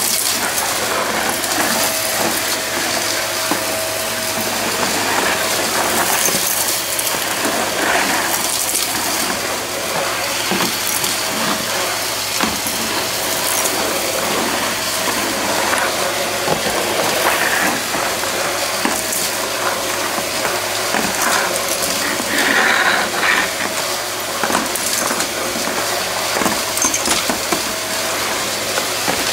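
Red stick vacuum running steadily with its floor head passing over a hardwood floor, sucking up scattered spilled dirt and debris that crackles and rattles as it goes up the wand.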